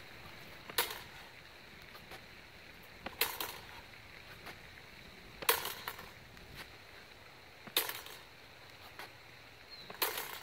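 Steel practice rapier blades striking together in five sharp clashes about two seconds apart, each one a cut in third to the head met by a high parry in second.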